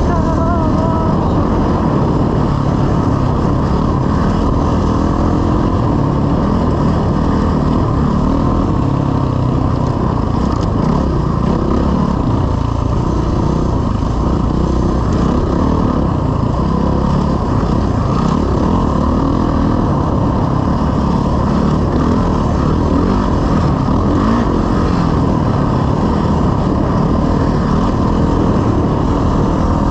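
Dirt bike engine running steadily as it is ridden along a trail, heard up close from on board the bike.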